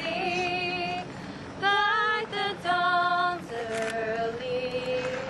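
A woman singing a slow song in long held notes with vibrato, rising to higher, louder notes in the middle.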